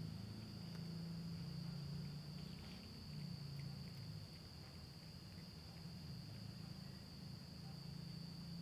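A cat eating from a plate, with faint small chewing clicks. Under it runs a steady high-pitched insect trill and a low hum.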